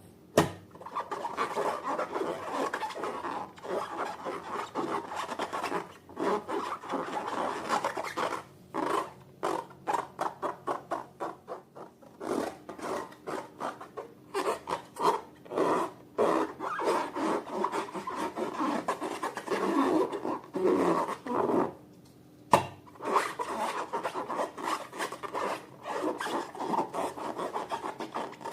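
Slime being handled, squeezed and stretched by hand: a rapid, irregular run of short sticky squishes and rubbing sounds, with one sharp snap about three-quarters of the way through.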